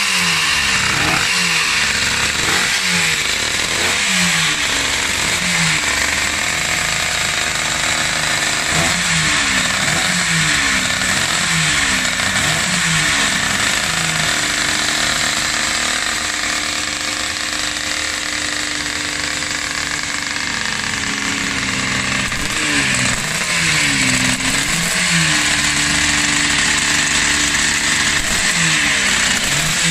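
Suzuki RG 500's two-stroke square-four racing engine running on a stand, its revs blipped up and down about once a second. The revs settle to a steadier idle about halfway through, then the blips start again.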